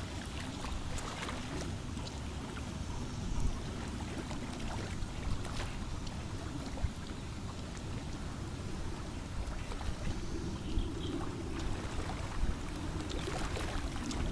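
Open-air waterfront ambience dominated by a low, fluctuating rumble of wind on the microphone, with a few faint clicks and a faint hum in the second half.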